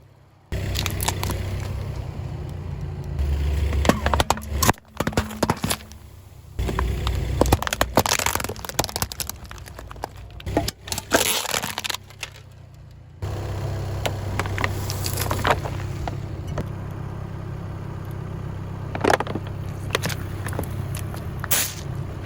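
A car's tyres rolling over and crushing brittle and soft objects: repeated cracking and crunching over a steady low engine hum, broken by a few abrupt cuts.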